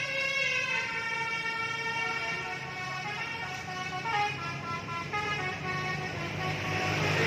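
Bus 'telolet' multi-tone air horn playing its melody, the notes stepping up and down, over the bus's engine running. The horn and engine grow louder near the end.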